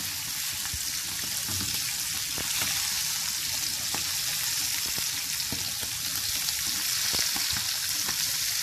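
Masala-marinated sardines shallow-frying in hot oil in a frying pan: a steady high sizzle with scattered small clicks and pops as a slotted spatula turns the fish over.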